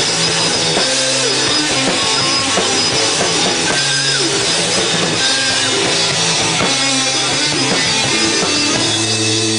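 Rock band playing at a steady loud level: drum kit and guitars together, with a low line of held notes changing every second or so.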